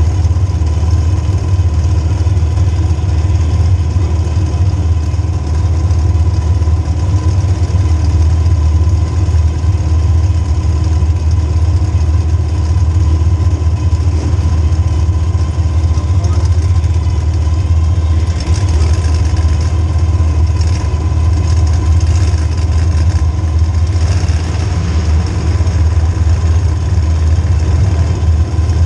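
Demolition derby car's small-block Chevy V8 running steadily at idle. Partway through there are several seconds of added higher-pitched noise.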